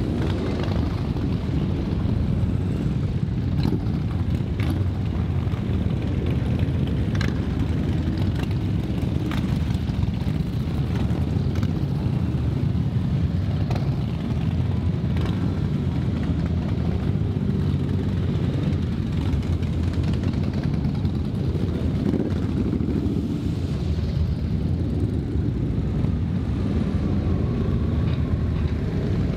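A procession of motorcycles, cruisers and sport bikes, riding past one after another with a steady low engine rumble.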